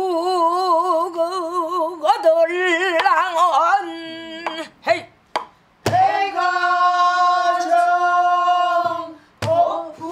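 A woman sings pansori, holding long notes with wide, wavering vibrato and twisting ornaments, with a breath pause midway. She accompanies herself on a buk barrel drum with two sharp stick strokes, one in the middle and one near the end.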